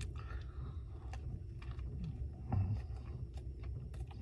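Low steady background hum with faint scattered clicks and a soft low thump about two and a half seconds in.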